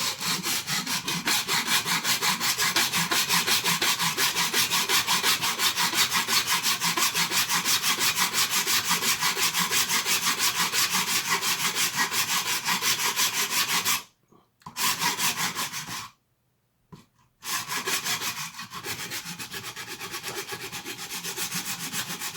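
Rapid back-and-forth hand abrading strokes on a plastic blaster shell, about five a second, smoothing it flush with a 3D printed guide. The rasping stops briefly twice about two-thirds through, then resumes.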